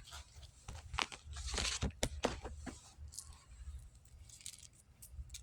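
Tarot cards being shuffled and handled: a run of soft rustles and crisp snaps, busiest in the first three seconds, then sparser.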